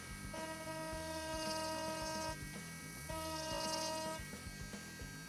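Dremel Stylo rotary tool running at its highest speed: a steady electric whine as the 106 carbide engraving bit lightly scores an outline into the wood.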